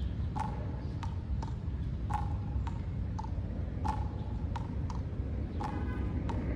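A short, sharp click-like call repeats about every second and three-quarters, with fainter clicks in between, over a steady low rumble.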